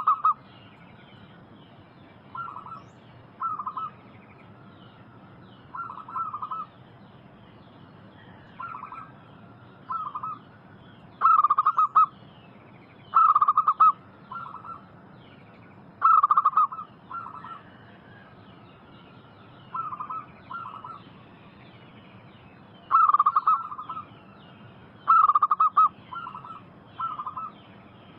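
Zebra doves (perkutut) cooing: short quavering coos, often in quick twos or threes, repeated at irregular gaps of a second or more. A faint higher chirping runs underneath.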